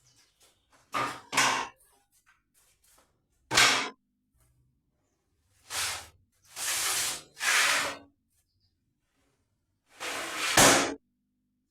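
A series of irregular knocks and scrapes: about seven separate short bangs and scuffs with quiet gaps between them, the loudest near the end, as MDF boards or cabinet parts are handled.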